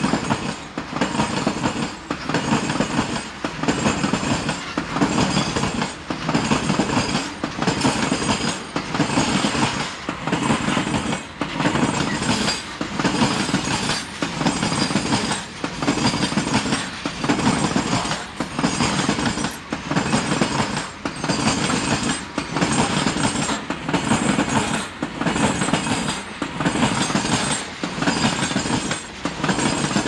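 Goods train of BCNA covered wagons rolling past at speed, steel wheels clattering on the rails. The clatter swells and dips evenly about every second and a quarter as each wagon goes by.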